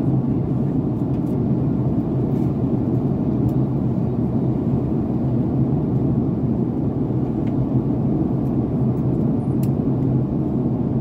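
Steady cabin noise inside a Boeing 767-400ER during descent: an even, low rush of airflow and engine noise with a steady low hum underneath.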